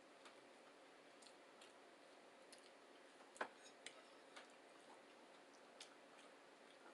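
Near silence with faint, scattered light clicks from eating, about ten of them, the sharpest about halfway through.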